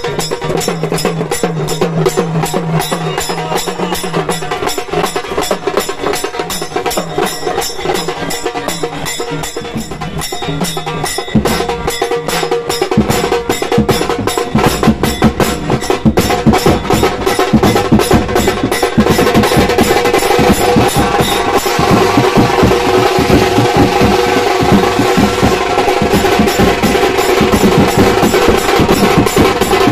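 Percussion-heavy music with a fast, even beat of sharp strikes and a sustained melody over it. About halfway through, heavier low drums come in and the music grows fuller.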